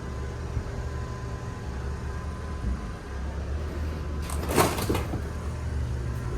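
A steady low hum, with a short clatter of sharp knocks about four and a half seconds in.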